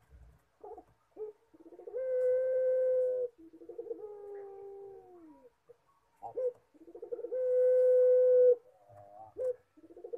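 Puter pelung (domestic ringneck dove) cooing its long, crying-like call. Each phrase opens with a few short notes, holds one long steady note, then trails off in a falling, drawn-out tail. A second phrase starts about six seconds in and a third at the very end.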